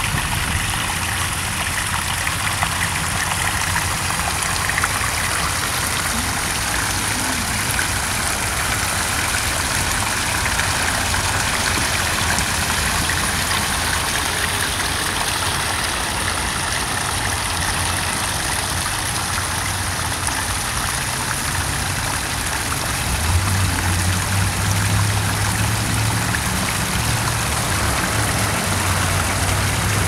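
Small pond waterfall splashing and trickling steadily into the pool, with a low engine-like hum underneath that grows louder near the end.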